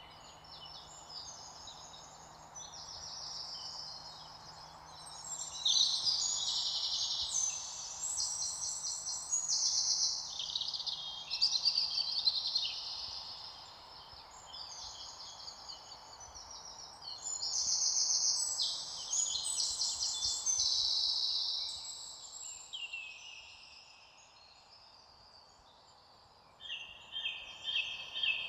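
Several songbirds singing and chirping in overlapping bouts of quick high notes, over a soft steady hiss of outdoor background noise.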